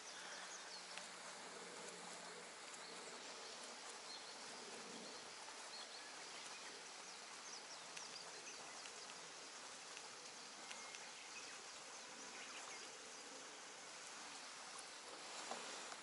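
Quiet outdoor ambience over open water: a faint, steady hiss with a few faint, brief high ticks or chirps.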